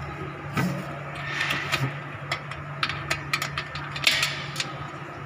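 Clicks, knocks and scraping of steel parts as a pin is slotted into the adjustment holes of a bench's steel frame. The handling comes in irregular bursts, with the loudest knock about four seconds in. A steady low hum runs underneath.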